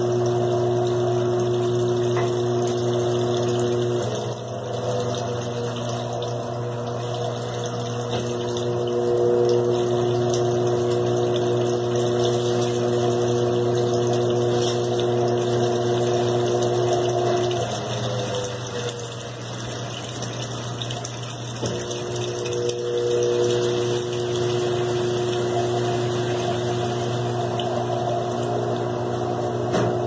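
Electrolux LT15F top-loading washing machine draining and spinning: a steady motor and pump hum over the rush of water, with the higher tones of the hum dropping out about four seconds in and again for a few seconds past the middle.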